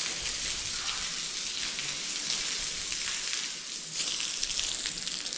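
Water spraying from a hose, a steady hiss with fine pattering of drops, briefly easing a little after the middle.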